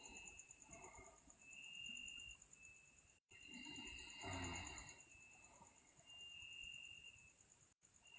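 Crickets chirping in a steady rapid trill, with a sleeping person's faint snoring breath about four seconds in. The sound cuts out briefly twice.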